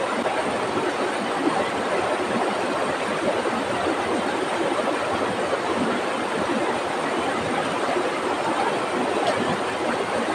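Rushing water of a small cascade pouring over boulders into a rocky river pool, a steady unbroken noise.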